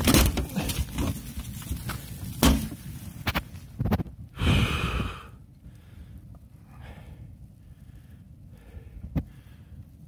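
Ford Escort RS Cosworth burning, flames pouring from the front of the car after a fuel line failed. A rushing noise with several sharp knocks, louder about four and a half seconds in, then settling to a faint steady noise.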